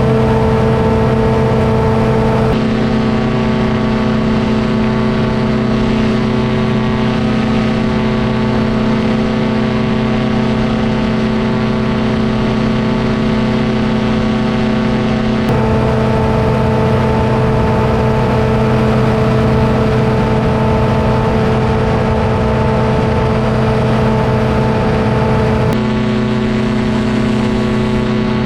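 Paramotor engine and propeller running at a steady, loud drone in flight. The pitch pattern changes abruptly three times, about two seconds in, about halfway and near the end.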